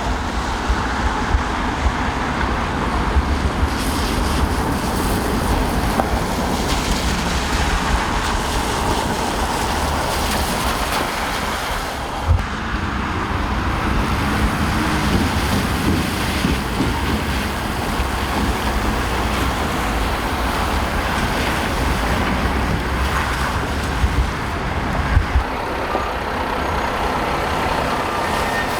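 Steady noise of road traffic on a snowy city street, with a low rumble of wind buffeting the microphone and a few brief gusts.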